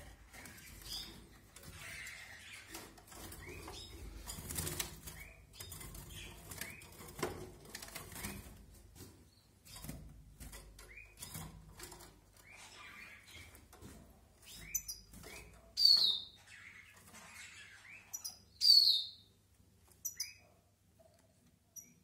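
A goldfinch and a female canary in a wire cage, fluttering and hopping about with light wingbeats and taps on the perches and wires, with soft chirps. Near the end there are two loud, short, falling calls about three seconds apart.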